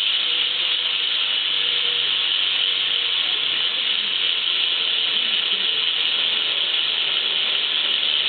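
Primo Remix rear cassette hub on a BMX bike freewheeling as the back wheel spins, giving a fast, steady ratcheting buzz of clicks too quick to tell apart.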